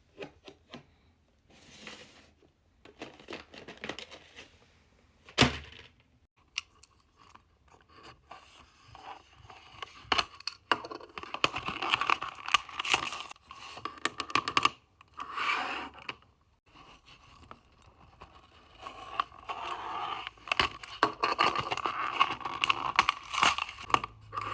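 Packaging being torn open and crinkled, in irregular bursts, with scattered clicks and one sharp snap about five and a half seconds in.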